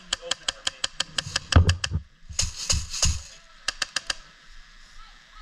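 Airsoft gun firing: a fast string of sharp clicks, about six or seven a second, with a short hiss about two and a half seconds in and a few more clicks near the end.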